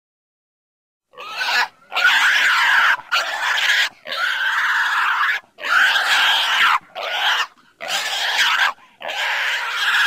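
A pig squealing: about eight loud, harsh, shrill squeals, each half a second to a second and a half long with short breaks between, starting about a second in.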